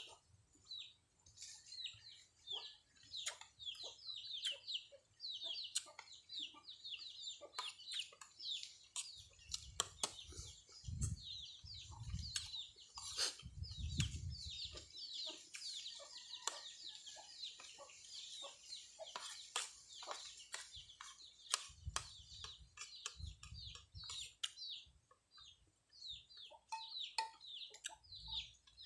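Chicks peeping in rapid, repeated short falling chirps, with scattered sharp clicks and a few low rumbles mixed in.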